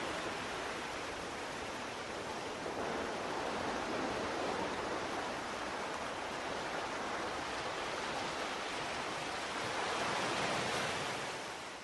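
Sea waves washing on a shore, a steady rush with slow gentle swells, fading out at the end.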